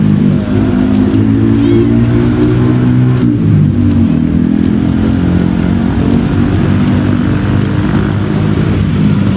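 Motor vehicle engine running close by, loud and steady, its pitch shifting down about three seconds in.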